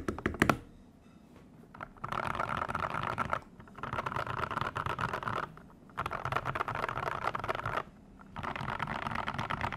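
Daxa M84 mechanical keyboard with lubed, filmed Gateron Yellow linear switches and XDA-profile keycaps being typed on. A few separate keystrokes come first, then four runs of very rapid keystrokes, each lasting a second and a half to two seconds, with short pauses between.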